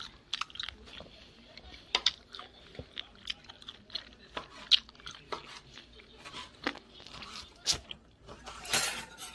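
Kitchen knife scraping and tapping on a cutting board as chopped boiled octopus is gathered up and dropped into a plastic container: irregular light clicks and knocks, with a longer scrape near the end.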